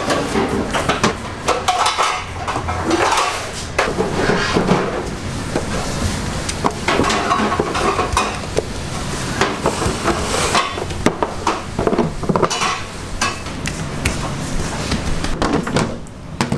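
Metal baking pans and trays clattering, with a string of irregular clanks and knocks.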